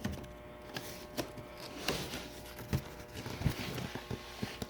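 Scattered light knocks and soft thuds at an irregular pace, like footsteps and cardboard cases being handled.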